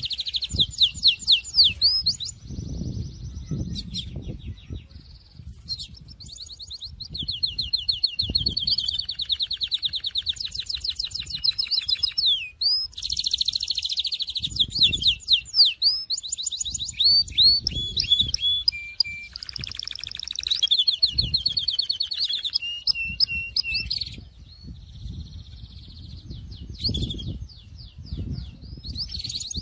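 Syrian canary singing a long song of rapid trills and rolls, phrase after phrase with short pauses between, over a low background rumble.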